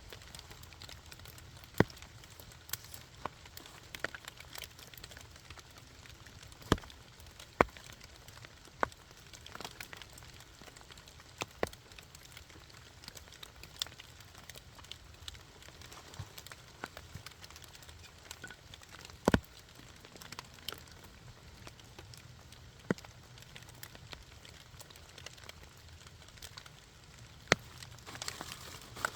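Wood campfire crackling, with sharp irregular pops scattered through it, the loudest about two-thirds of the way in, over a faint steady patter of rain.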